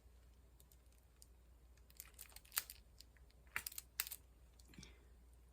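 Faint, sharp clicks and taps of small plastic diamond-painting supplies being handled on a desk, about five between two and four seconds in.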